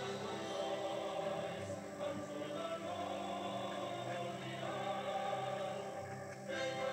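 Choir singing long, held chords.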